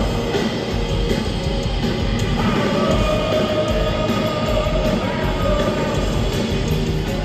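Live heavy rock band playing loud, distorted electric guitars with a steady, heavy low end, recorded from among the audience at a concert.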